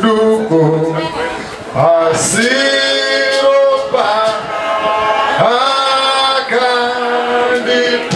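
A man singing into a microphone through a PA, unaccompanied, holding long gliding notes in short phrases.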